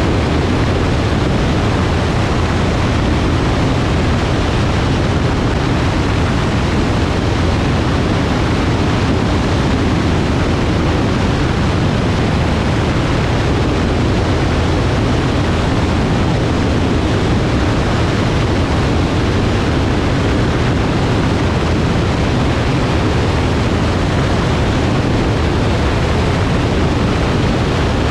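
Grumman Tiger's four-cylinder Lycoming O-360 engine and propeller running steadily in flight, heard from a camera mounted outside on the tie-down ring, with heavy wind rush over the microphone.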